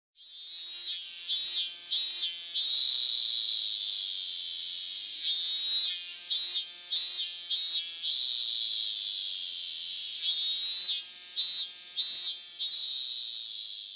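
Cicada sound effect: a high, shrill buzz that comes in three phrases about five seconds apart. Each opens with three or four sharp pulses and then settles into a steady drone that slowly fades.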